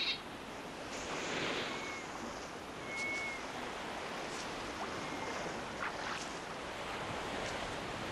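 Steady outdoor nature ambience: an even rushing noise like surf or wind, with a few faint short whistled calls and thin chirps scattered through it.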